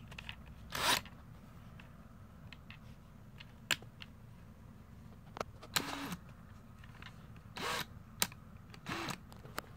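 Handling noise from a cordless drill held in the hand with a bit fitted: a few sharp clicks and several short rustling bursts, each about a third of a second long, scattered through a faint background.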